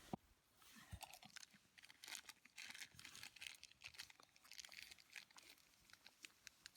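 Near silence with faint, scattered crackling and rustling: many small irregular crinkles.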